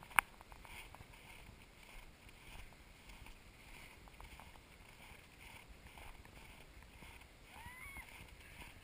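Faint swishing scrape of snow under a sliding snow tube, coming in uneven pulses. A single sharp click sounds just after the start, and a brief faint squeal near the end.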